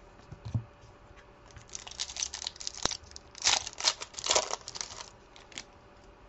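Trading card pack wrapper being torn open and crinkled by hand in a run of short rips and rustles, loudest in the middle, after a soft thump about half a second in.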